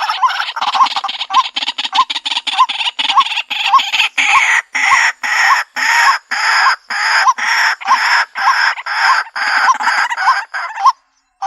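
White-breasted waterhen calling: a harsh, fast-repeated 'ruak-ruak' croak, a little over two calls a second, from a looped lure-call recording. The calling stops abruptly near the end and starts again after a short gap.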